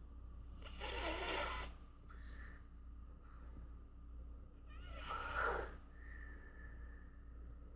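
Snoring: two long, noisy breaths, the first about a second in and the second about five seconds in.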